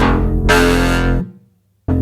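Electronic-style music with struck pitched notes over a steady bass, abruptly cutting to silence for about half a second near the end before coming back in.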